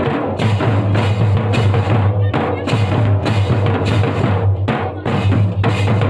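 A group of drums beaten with sticks in a fast, continuous rhythm: slung barrel drums over the boom of a large laced bass drum, with metal shakers rattling along.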